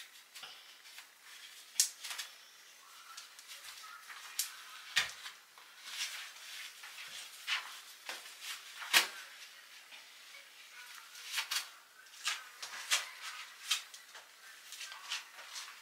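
Hands taking scrunchies and a heatless curler out of hair: scattered soft rustles and small sharp clicks and snaps at irregular intervals.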